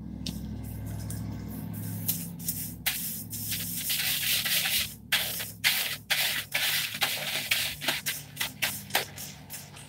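Hands scrubbing shampoo lather through short wavy hair close to the microphone: irregular rubbing strokes that hiss and squish.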